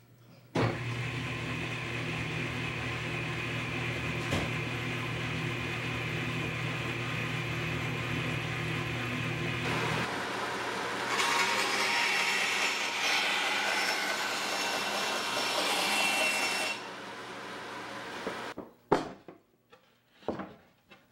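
Power-tool motor running with a steady hum. About eleven seconds in, a band saw cuts through plywood for about six seconds, then the motor winds down. A couple of wooden knocks follow near the end.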